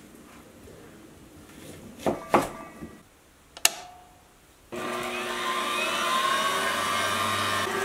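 A few knocks and a sharp click, then an electric meat grinder's motor switches on about two-thirds of the way in and runs steadily with a whine.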